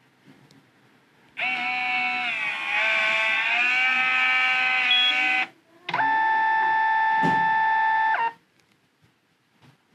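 Kodak dock photo printer's internal motor whining in two abrupt runs, the first about four seconds long with a slight dip in pitch near its start, the second about two and a half seconds long, steady, with a single knock partway through.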